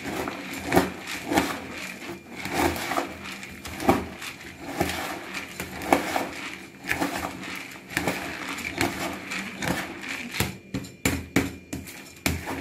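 A steel spoon stirring puffed-rice bhel mix in a large plastic tub: crunchy rustling of the puffed rice and scraping of the spoon against the plastic, in repeated uneven strokes.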